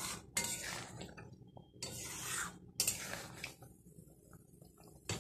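Metal spatula stirring and scraping a metal kadai of wet pumpkin curry: three scraping strokes in the first few seconds, then quieter, with a sharp clink near the end.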